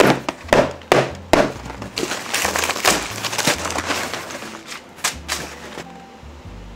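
Cardboard shipping box being opened by hand: packing tape ripped off in several sharp tears in the first second and a half, then a dense stretch of cardboard and packing paper rustling and crinkling, with a couple more sharp rips or snaps about five seconds in.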